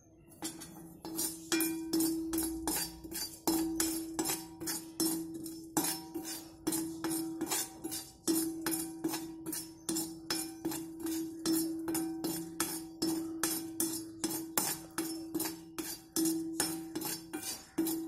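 Steel perforated ladle scraping and knocking around a cast iron kadai as chana dal is dry-roasted, a few quick strokes a second. The pan rings after each stroke and the lentils rattle against the metal.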